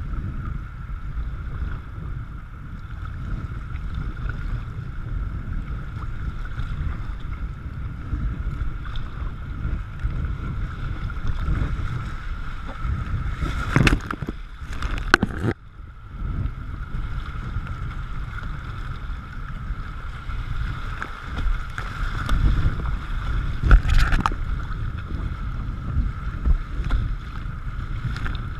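Kayak paddling through a river riffle: rushing water and low wind rumble on a deck-mounted camera, with paddle splashes. About halfway through, water splashes over the camera, loud for a moment and then briefly muffled, and another splash comes near the end.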